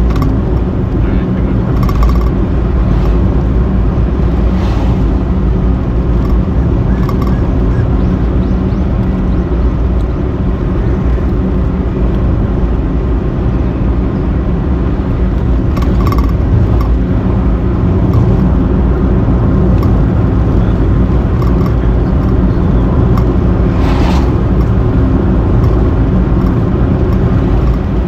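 Steady loud, low wind and road noise of riding in a moving vehicle, with a few faint short sounds over it.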